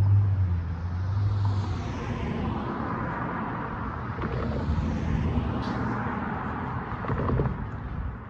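Road traffic: a low engine hum that fades out about a second and a half in, then the rushing tyre and engine noise of cars passing over the crossing.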